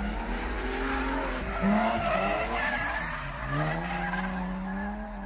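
Car engine revving up and down while its tyres squeal, the sound of a car sliding through a drift or burnout.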